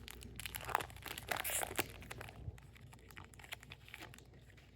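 Wrapper of a 2025 Topps Heritage baseball card pack being torn open and crinkled by hand: a run of small crackles, thickest in the first two seconds and thinning out after.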